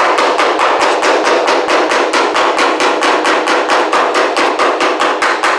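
Body hammer beating the steel drip rail of a 1964 Volkswagen Beetle's roof against a hand-held dolly, in a rapid, even run of about six blows a second, straightening the crushed rail.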